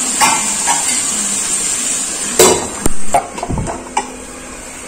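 A stainless steel lid clanks against a metal kadai a few times from about halfway through as it is set on to cover the pan. Under it a steady hiss dies down about three seconds in.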